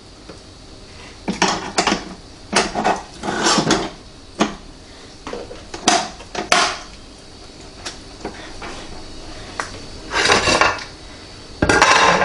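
Metal clinks, clanks and scrapes as a turkey roast on the Power Air Fryer Oven Elite's rotisserie spit is slotted into the oven, mixed with knocks of a glass baking dish; a string of short sharp sounds with pauses between, the loudest near the end.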